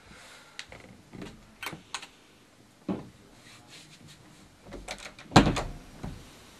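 A few footsteps and the handling of a room door, ending with the door being shut with a sharp knock about five and a half seconds in.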